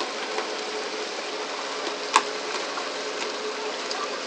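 On-deck sound of a pole-and-line tuna fishing boat: a steady rush of water with a faint steady hum, and one sharp knock about two seconds in.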